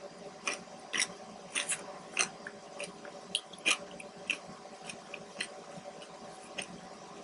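A person chewing a large mouthful of food close to the microphone. It gives soft, irregular wet clicks and smacks about twice a second.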